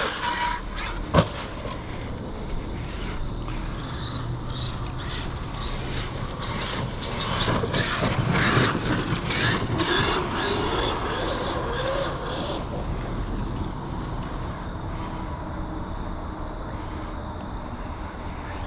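Outcast 8S RC truck's 1100kV brushless motor whining as it is revved up and down again and again, over the rush of tyres on dirt, with a sharp knock about a second in.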